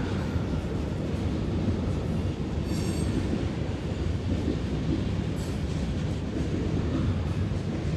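Freight cars of a long train rolling past, a steady low rumble. A brief high wheel squeal comes about three seconds in, and a fainter one near five and a half seconds.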